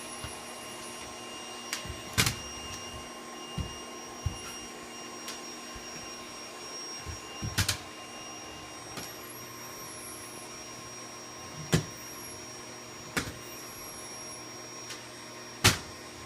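Vacuum cleaner running steadily with a constant whine of several tones. Sharp knocks come through about four times, the loudest near the end.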